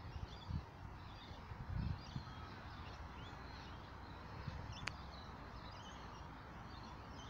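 Quiet outdoor ambience: a steady low rumble with faint distant bird calls, a few soft thumps, and one sharp click about five seconds in.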